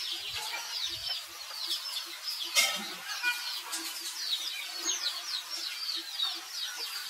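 Small birds chirping busily in quick falling notes, over a soft low pulse repeating two or three times a second, with one sharp click about two and a half seconds in.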